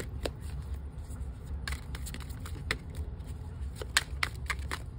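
A tarot deck being shuffled overhand by hand: scattered soft snaps and slides of cards, coming faster in the last second or so, over a steady low hum.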